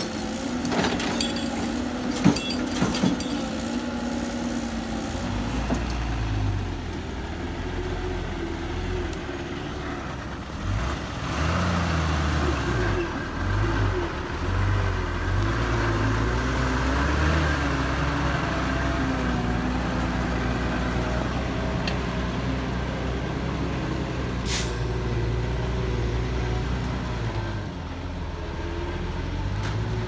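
Diesel dump truck engine running, rising and falling in revs, after a few sharp knocks and a steady machine hum from the excavator loading it at the start. A short sharp hiss about three-quarters of the way through.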